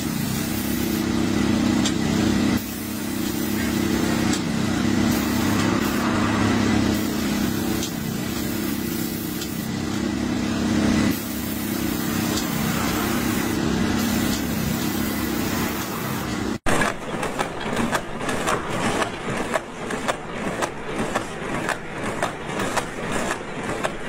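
Road-marking paint sprayer and its pump unit running with a steady drone and hiss. About two-thirds in the sound cuts off sharply and a cardboard box-making machine takes over with a rhythmic clatter.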